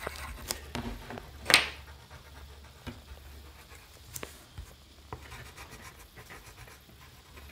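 Coloured pencils scratching on paper, with a few light clicks and taps. A short, loud, breathy whoosh comes about a second and a half in.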